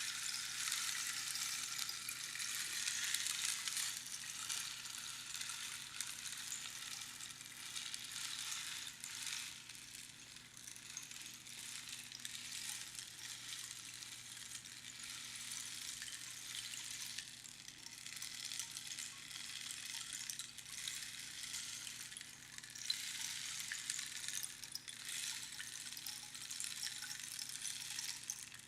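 Rainstick: small pebbles trickling down past the pins inside the hollow tube in a continuous, rain-like fine rattle, swelling and easing over several seconds.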